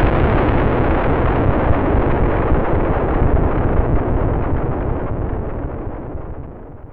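Rolling rumble of a stock missile explosion sound effect, the long tail after the blast. The deep rumble holds, then slowly fades and loses its high end, dying away near the end.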